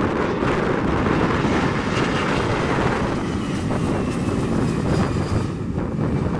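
Airbus A320-200 jet airliner at takeoff thrust, its twin engines giving a loud, steady rumbling roar as it lifts off and climbs, with a faint high whine in the middle. Wind buffets the microphone.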